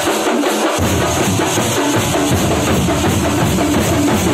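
Thampola drum ensemble playing a heavy, dense beat. The deepest drum sound is missing at first and comes in strongly under a second in.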